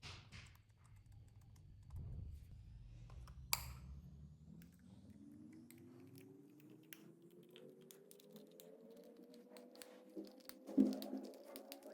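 Slime being squished and stirred: scattered soft, sticky clicks and crackles, with one sharper click a few seconds in and a louder cluster near the end, over a low tone that glides slowly upward in pitch throughout.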